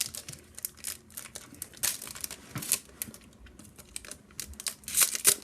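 Crinkling and rustling of a foil Yu-Gi-Oh! booster pack wrapper being handled and torn open, a run of irregular sharp crackles.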